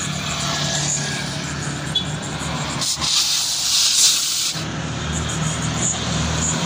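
Compressed air hissing out of a car tyre for about a second and a half, from about three seconds in, over a steady low engine hum.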